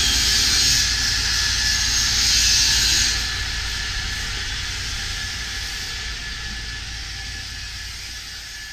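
A loud rushing noise like a jet engine, strongest for the first three seconds and then fading steadily away, with a faint steady whistle running through it.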